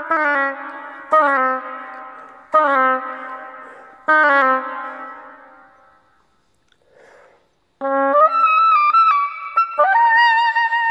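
Solo oboe playing unaccompanied in a reverberant church. Several short, accented notes each ring away into the room. After a pause of about two seconds, the oboe resumes with quicker notes and ends on a held note with vibrato.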